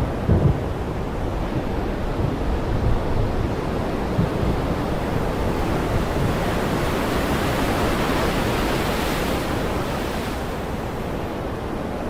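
Heavy rain falling steadily, a dense even hiss that grows brighter for a few seconds around the middle.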